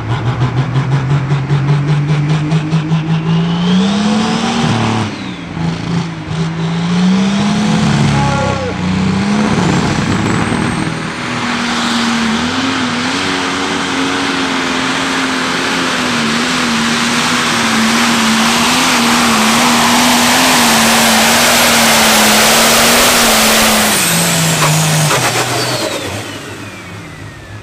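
Case IH Pro Stock pulling tractor's turbocharged diesel engine at full throttle, hauling a weight-transfer sled. The pitch rises and wavers through the first ten seconds, holds high and steady for about ten seconds, then falls away as the engine winds down near the end.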